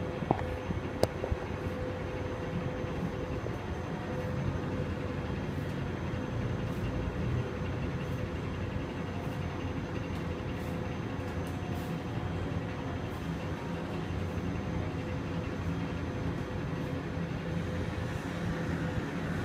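Epson SureColor S40670 large-format printer running as it prints a vinyl banner: a steady mechanical hum with a faint steady tone. A few small clicks come about a second in.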